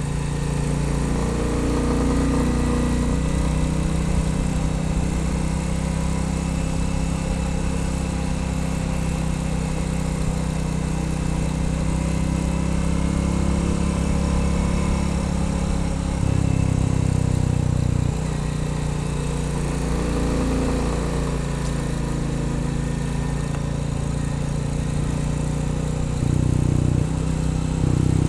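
Royal Enfield Bullet 350's single-cylinder engine running steadily under way. The engine note changes and gets louder briefly about two-thirds of the way through and again near the end.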